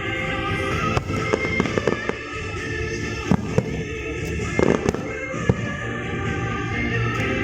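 Fireworks going off in irregular sharp bangs, several in quick succession, over music playing.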